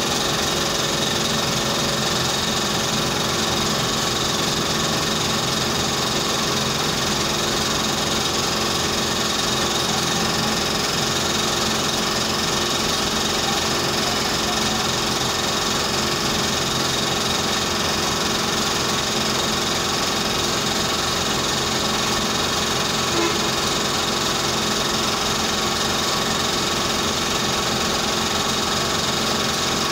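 A motor-driven machine running at a steady pitch: a constant hum with several steady tones over a hiss.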